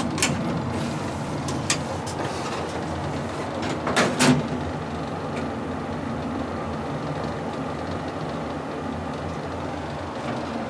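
Vintage Otis passenger elevator: a few light clicks, two sharp clunks about four seconds in as the doors shut, then the steady hum of the car travelling between floors.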